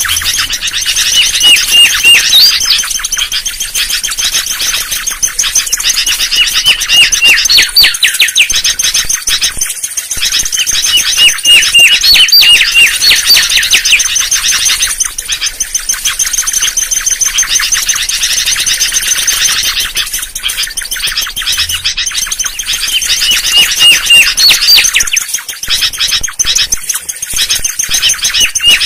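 Mangrove whistler song used as a bird-trapping lure: loud phrases of quick repeated whistled notes, each run ending in an upswept note, recurring every few seconds over a dense background of high chirping.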